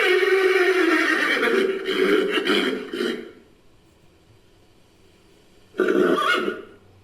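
Horse whinny reworked into a creature sound effect: one long pitched call of about three seconds, then a second, shorter call near the end.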